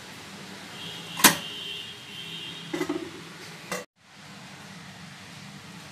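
Stainless-steel idli steamer plates clinking against a spoon and pot: a sharp metal clink about a second in with a short high ring, then two lighter clinks, over a steady low hum.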